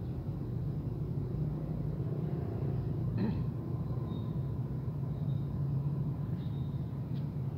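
Steady low rumble of a running motor, with a brief short high sound about three seconds in.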